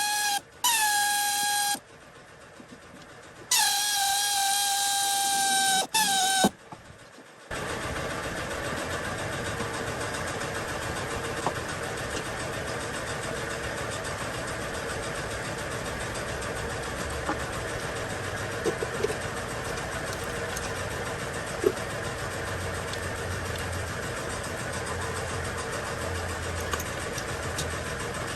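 Two loud, steady high-pitched tones in the first few seconds, each dipping slightly in pitch as it starts. Then, from about seven seconds in, a Chrysler Pacifica's engine runs steadily at idle.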